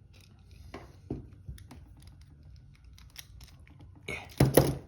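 Scattered small clicks and taps of hands working a padlock with metal tools, with a louder burst of handling noise shortly before the end.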